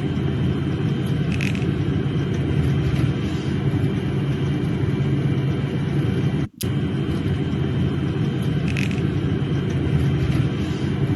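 Jet airliner landing: a steady, deep engine rumble with a thin turbine whine above it. The sound breaks off briefly about six and a half seconds in, then picks up again.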